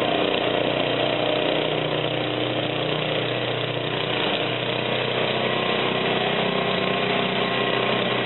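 A 34-year-old Bob-Cat snow thrower's gasoline engine running at a steady pace while the machine clears and throws snow.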